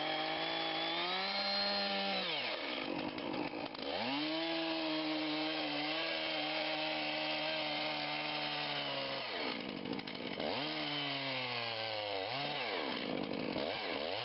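Chainsaw cutting into a large beech trunk during the felling back cut. The engine revs up and holds at high speed, then drops back toward idle twice, about two and a half seconds and nine seconds in, before revving up again.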